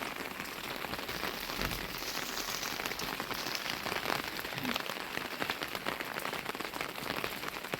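Steady rain falling: an even hiss with many small, close-set drop ticks.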